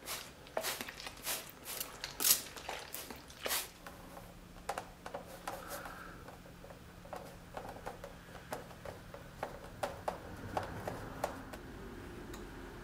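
A hand spray bottle squirting water onto saddle leather, several quick hissing sprays in the first few seconds. Then a run of light clicks and scratches as a knife cuts along a line in the leather.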